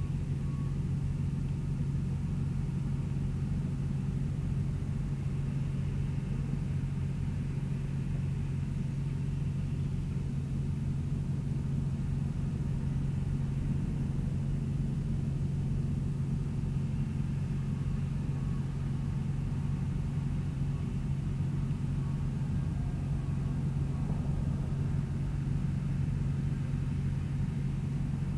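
An engine running steadily at idle: an even, unchanging low hum.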